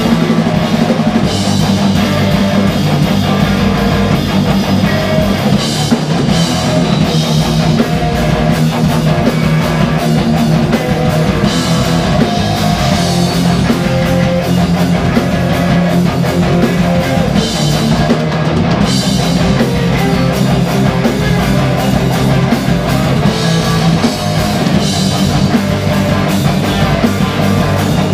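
A live band plays a loud, steady rock piece on drum kit and electric guitars.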